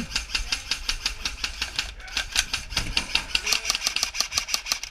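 Airsoft rifle firing on full auto: a rapid, even chatter of shots, about ten a second, with a brief pause about two seconds in. It cuts off just before the end.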